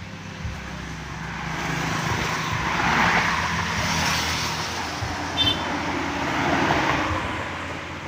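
Motor vehicles passing by on a road, the noise swelling and fading twice, loudest about three seconds in and again near the end, over a steady low engine hum. A short click comes about five and a half seconds in.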